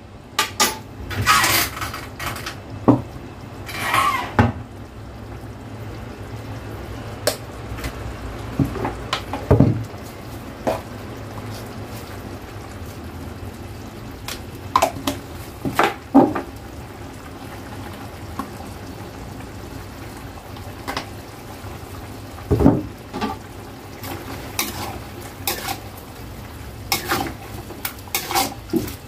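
Metal spatula and spoon clinking and scraping against a stainless-steel wok while a seafood dish in sauce is stirred, in scattered separate clanks with quieter stretches between.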